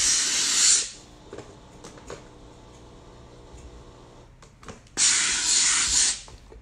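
Steam iron hissing out bursts of steam while pressing a sleeve hem: one burst stops about a second in, and another comes about five seconds in and lasts a little over a second.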